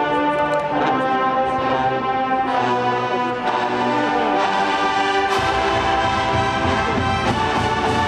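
College marching band's brass section playing a fanfare in held chords that change every second or two, with sousaphones in the bass; the sound grows heavier in the low end about five seconds in.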